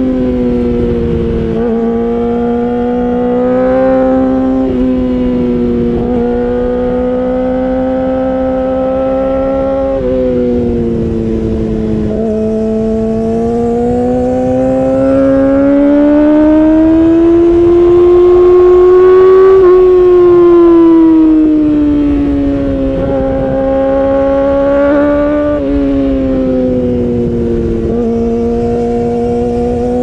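Yamaha R6 inline-four engine, heard through an Akrapovic Evolution Racing exhaust while riding. It holds a high, loud note whose pitch climbs and falls slowly as the revs change, with a few brief dips along the way.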